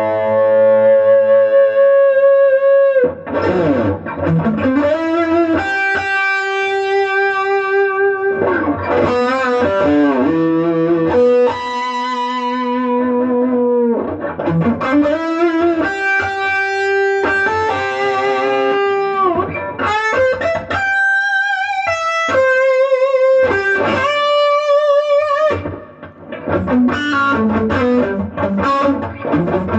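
Electric guitar played through a freshly repaired Bugera V22 Infinium valve combo amp, which sounds pretty good: lead lines of long held notes with vibrato and bends, with a slightly driven, effects-coloured tone. The playing breaks off briefly near the end.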